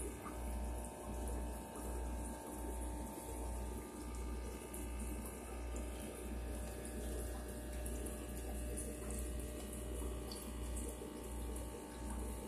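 Air-driven aquarium sponge filters bubbling: a steady stream of air bubbles rising and breaking up the lift tubes, over a low rumble that swells and dips about three times every two seconds.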